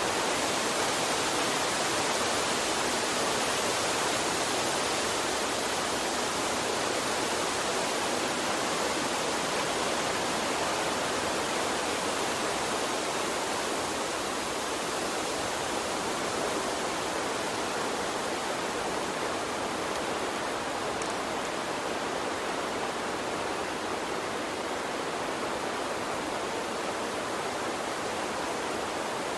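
A small stream flowing steadily, an even rushing wash of running water with no breaks.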